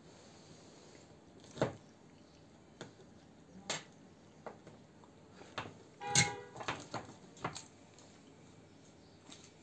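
Hand work on a car's steering-column horn and indicator stalk: a series of sharp plastic clicks and knocks, with one brief pitched sound about six seconds in, the loudest moment.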